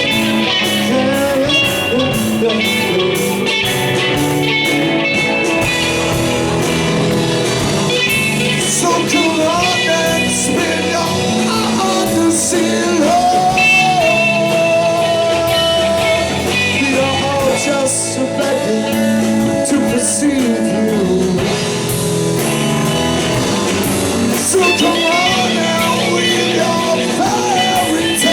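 Live psychedelic rock band jamming: electric guitars, bass and drums, with a lead line bending and sliding in pitch over the steady beat.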